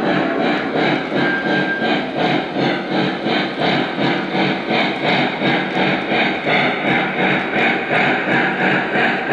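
Lionel Legacy N&W Y6b 2-8-8-2 model steam locomotive's on-board sound system playing steady steam chuffing, an even beat of about two chuffs a second as the locomotive runs.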